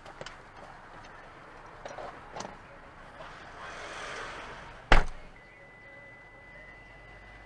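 Traffic passing a stopped car, heard from inside it: a truck swells past about three to four seconds in. A single sharp knock, the loudest sound, comes about five seconds in, and right after it a steady high-pitched tone starts and holds.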